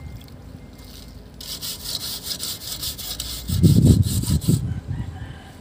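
Brisk scrubbing of a rusty steel brake drum with a wet sponge, a quick run of rasping strokes at about five a second that starts about a second and a half in and stops near the end. A louder low rumble joins the last second of the scrubbing.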